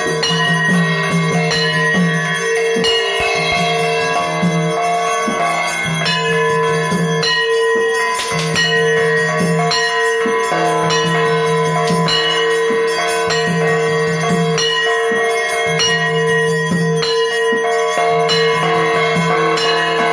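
A puja hand bell ringing on and on, over music with a lower part that comes in phrases of a second or two.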